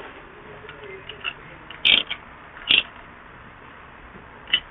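A new spin-on oil filter being screwed by hand onto the engine from underneath the car: quiet handling noise with three short, sharp clicks or scrapes, about two seconds in, again a second later, and near the end.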